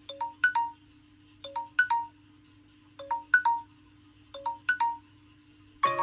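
Smartphone ringtone: a short chiming phrase of a few bright notes, repeated four times about every second and a half over a faint steady hum. Just before the end, a different and busier melody cuts in.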